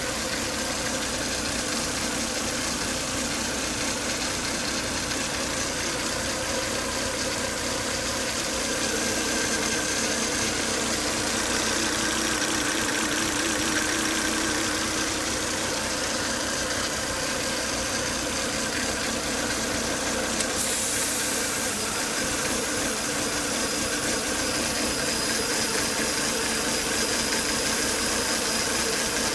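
Volvo S80 2.5T's turbocharged five-cylinder engine running at idle with a steady whine made of several high tones over it, the strange noise the owner hears after 10–20 minutes of running along with strong vacuum at the oil filler. A single sharp click about two-thirds through.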